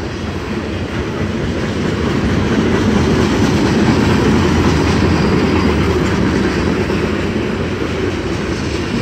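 BNSF freight train's cars rolling past: steel wheels running over the rails in a steady, dense rolling noise that swells a little in the middle.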